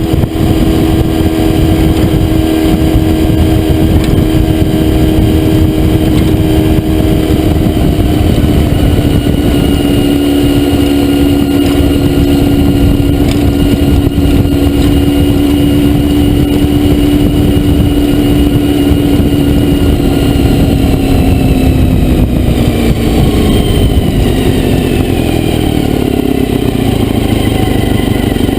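Honda VFR400R's 400 cc V4 engine running hard at a steady high pitch while riding. The note sinks slowly, then drops away more steeply a little past two-thirds through as the throttle is rolled off.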